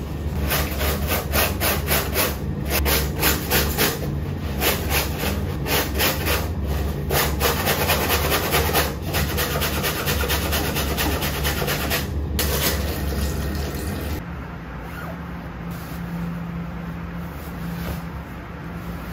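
Wet, soapy clothes being scrubbed hard by hand in a sink: fast, even back-and-forth rubbing strokes, several a second. About 14 seconds in the scrubbing stops and a quieter, steady background hum is left.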